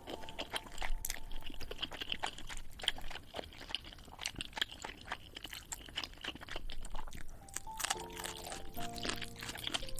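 Close-miked eating sounds of spicy noodles: wet, sticky chewing and slurping with a dense run of small smacking clicks. Background music comes in about eight seconds in.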